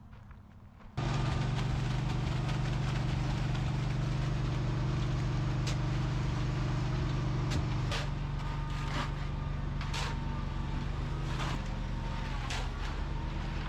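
A motor running steadily, starting abruptly about a second in, with scattered sharp clanks and knocks over it.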